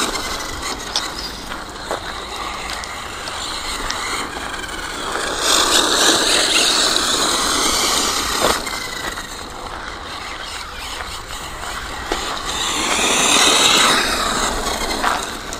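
ZD Racing 08425 1/8-scale RC buggy's brushless electric motor and gear drivetrain whining as it drives over rough ground, the whine rising in pitch and getting louder twice, around six and thirteen seconds in, as the buggy accelerates, then falling as it slows.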